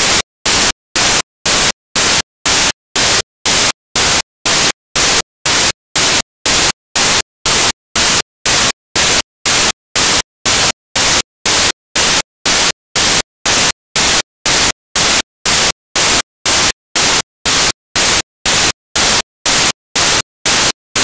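Loud bursts of static hiss, about two a second, evenly spaced and cut off sharply with silence between: a fault in the recorded audio, not a sound of the traffic.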